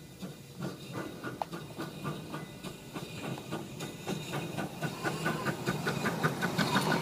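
Maxitrak R1 7¼-inch gauge live-steam tank locomotive running past on its first steaming: regular chuffs and wheel clicks about five a second over a steam hiss, growing louder as it approaches.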